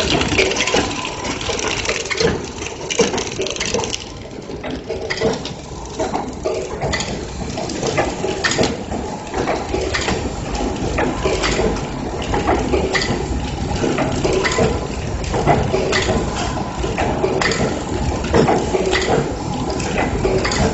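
Automatic flow wrapping machine for snack bars running, with frequent clicks and knocks over a steady mechanical noise. A high hiss drops away about four seconds in.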